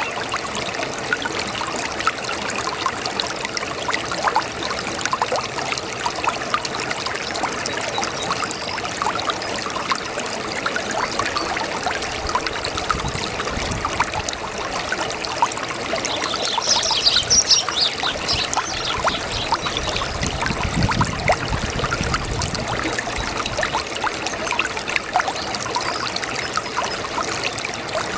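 A brook babbling and trickling steadily over stones, with a brief high-pitched flurry about seventeen seconds in.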